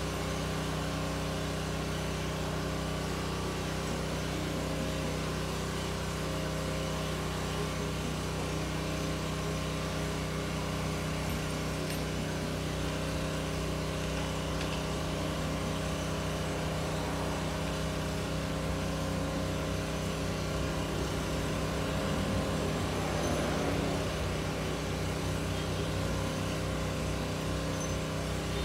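Steady, unchanging machine hum of a motor or engine running, with no change in pitch. It swells slightly near the end.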